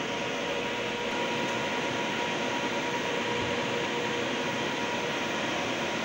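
Trane chilled-water unit running, a steady rush of fan and machinery noise with a faint steady hum.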